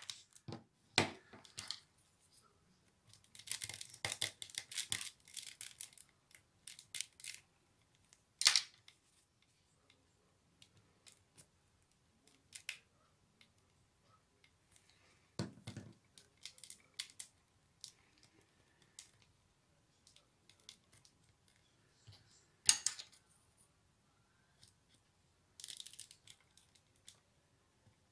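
Scattered handling sounds of paper basket-weaving: a craft knife cutting rolled paper tubes, with scratchy paper rustling, several sharp clicks and one dull knock near the middle.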